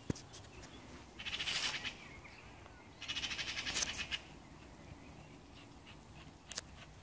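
Faint songbird singing two short, high trilling phrases, about a second and three seconds in.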